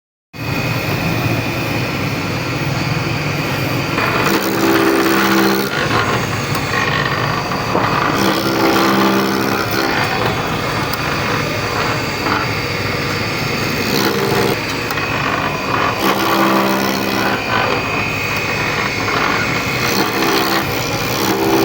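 Wood lathe running with a turning tool cutting the spinning wood, a steady mechanical noise with a tone that comes and goes every few seconds. It starts abruptly just after the beginning.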